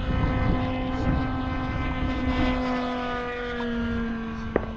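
Small glow-fuel engine of a radio-controlled model airplane, the Seagull Racer Delta 40, running fast in flight: a steady buzz that slowly drops in pitch. Wind rumble on the microphone underneath, and one sharp click near the end.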